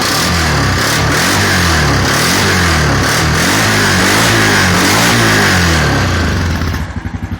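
2001 Honda Foreman 450 ATV's single-cylinder four-stroke engine being revved through an exhaust with no baffle or spark arrestor, its pitch rising and falling several times and sounding pretty gnarly. Near the end it drops back to a loping idle.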